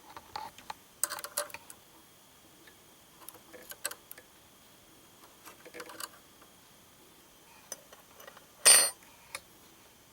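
Small metallic clicks and taps of a needle and precision screwdriver being worked at a serger's needle clamp, with one louder, short metallic clatter near the end.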